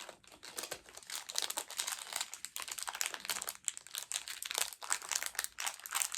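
Plastic mystery pin bag crinkling and crackling in irregular bursts as hands work at opening it and pull out the pins.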